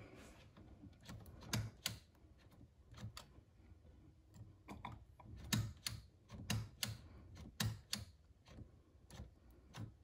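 Irregular sharp clicks and light knocks, roughly one a second, several coming in quick pairs.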